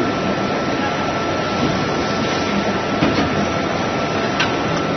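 Steady machinery din from injection molding machines running in a hall, with a faint high steady whine throughout and two short clicks near the end.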